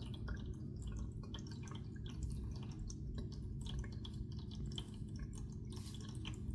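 Cat lapping water with quick, irregular little laps and splashes, several a second, over a steady low hum.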